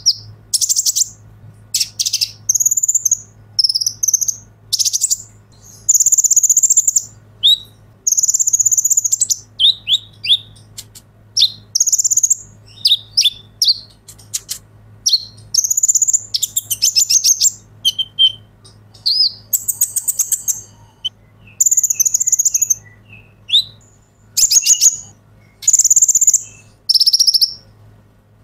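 Caged male kolibri ninja sunbird singing energetically. It gives one short burst of rapid, high-pitched chirps and trills after another, every second or two, with brief pauses between them.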